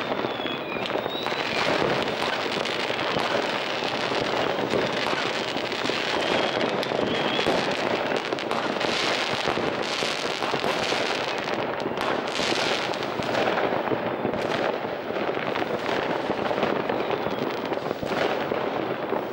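Many firecrackers and fireworks rockets going off at once, a dense, unbroken crackle of bangs with no pause, and a few rockets whistling in the first seconds.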